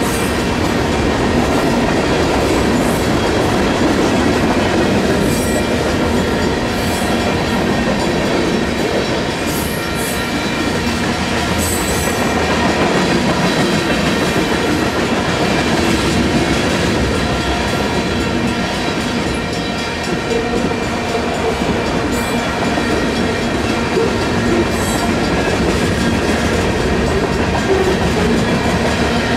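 Union Pacific manifest freight train's cars rolling steadily past, with a few brief high squeaks from the wheels.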